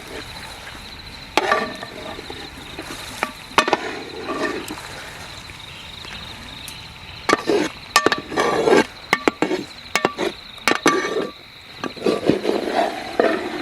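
Kitchen utensils knocking and clinking against a cooking vessel, a burst of sharp strikes about halfway through, over a steady high insect drone.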